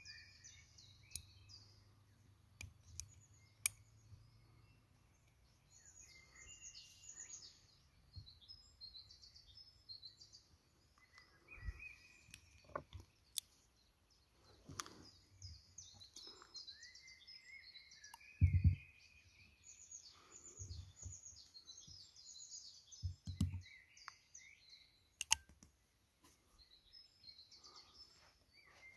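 Small birds chirping and calling on and off, with scattered sharp metallic clicks and a few dull knocks as a small double-barrelled 6 mm Flobert pistol is handled and its mechanism worked.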